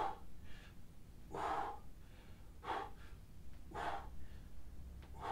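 A man's forceful breaths out, about five of them spaced a little over a second apart, one with each press of a pair of dumbbells during a set of crush presses.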